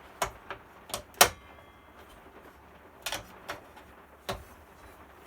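About seven sharp metallic clicks and knocks from handling parts of a mitre saw and an Allen key. The loudest comes a little over a second in and rings briefly.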